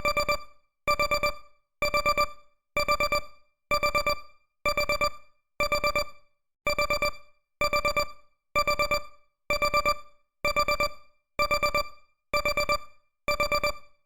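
Countdown timer alarm going off with simple electronic beeps: a quick cluster of about four beeps repeated roughly once a second, signalling that the timer has reached zero.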